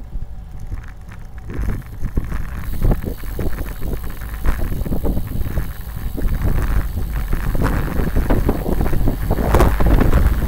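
Wind buffeting the microphone of a camera riding along on a bicycle, a heavy low rumble that grows louder about two seconds in, with many short knocks and rattles over it.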